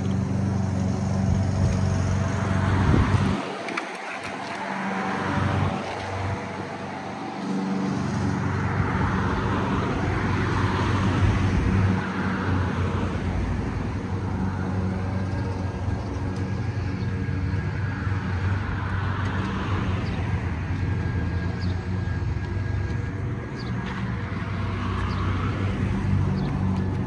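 A steady low engine hum, with swells of rushing noise every few seconds.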